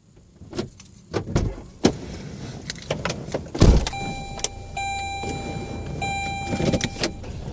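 Getting into a car: scattered clicks and knocks, a car door shutting with a thump about three and a half seconds in, then the car's warning chime sounding as a repeated steady tone.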